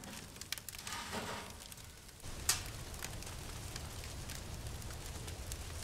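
Firewood crackling as it burns in a camping tent stove, with scattered small snaps and one louder pop about halfway in.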